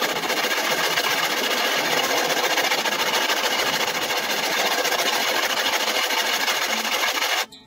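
Stanley 71 1/2 router plane's metal sole being lapped back and forth on lubricated wet/dry sandpaper: a steady, scratchy scraping that stops abruptly near the end.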